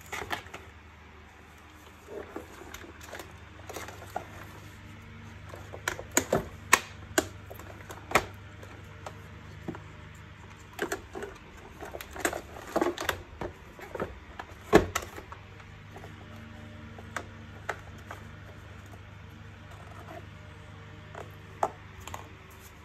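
Irregular clicks, knocks and rattles of the plastic housing of a canister vacuum cleaner and its wiring being handled and fitted together, with the loudest knock about two-thirds of the way in, over a low steady hum.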